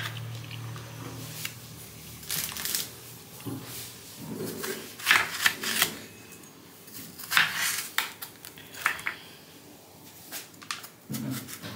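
Kitchen knife cutting through juicy watermelon wedges on a wooden chopping board: crunches of the blade through the flesh and rind and taps against the board, in several short spells.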